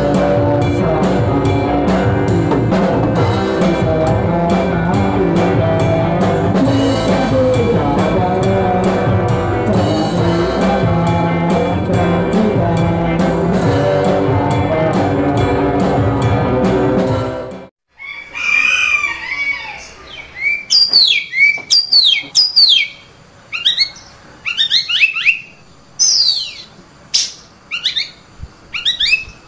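Background music with a steady drum beat that cuts off abruptly about 18 seconds in. Then birds chirping in short, quick, falling calls at irregular intervals.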